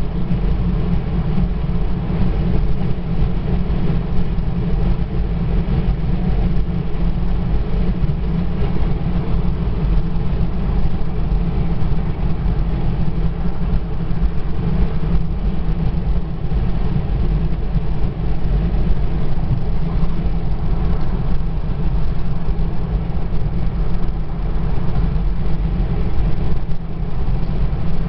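Steady low rumble of tyres and engine, heard from inside a car cruising at highway speed.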